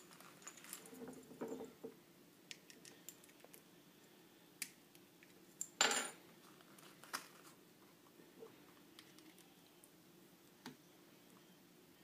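Faint clicks and taps of a metal handheld laser pointer and its foam-lined box being handled, with one louder knock about six seconds in.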